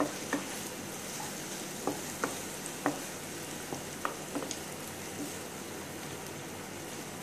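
Sliced onion, carrot and green capsicum sizzling in hot oil in a nonstick pan, stirred with a spatula that clicks against the pan a few times.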